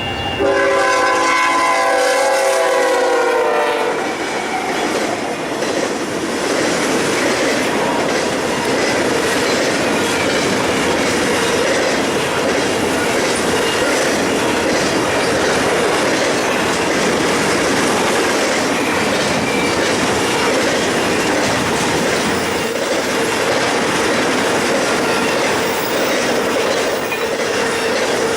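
Diesel locomotive horn sounding as the train passes, its pitch sagging slightly, cutting off about four seconds in. Then a long train rolls by with wheels clattering over the rail joints and a faint steady wheel squeal that grows near the end.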